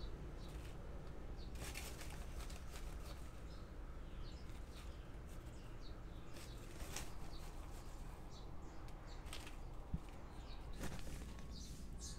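Faint short chirps of small birds over a low steady hum, with a few brief rustles and a single sharp click about ten seconds in.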